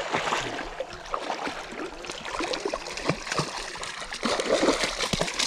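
Water splashing and sloshing as a small hooked trout thrashes at the surface, with many quick, irregular splashes.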